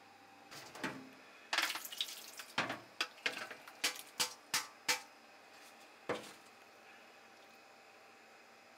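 Plastic colander of salmon roe handled in a stainless steel sink as the roe drains. A brief splash of water comes first, then a quick run of sharp knocks against the sink and one more knock about a second later.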